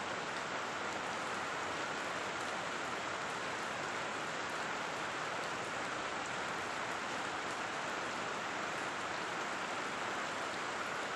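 Steady, even hiss of rain falling on a plastic greenhouse roof, with no single sound standing out.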